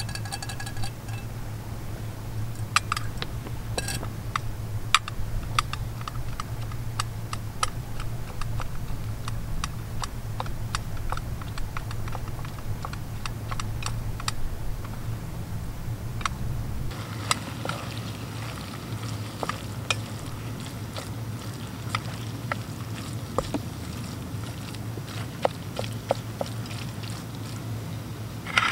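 A utensil clinking and scraping against a metal camping pot while pasta is stirred over a gas canister stove: irregular light clicks throughout, over a steady low hum.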